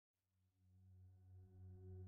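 Faint ambient music fading in from silence: a sustained drone of several held tones, like a singing bowl.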